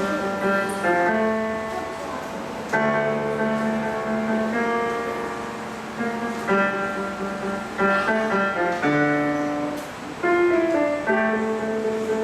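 Piano playing slow, held chords, with a new chord struck every second or two.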